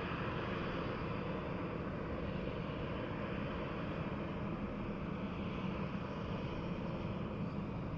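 Steady, distant jet airliner engine noise, an even low rumble with a hiss above it.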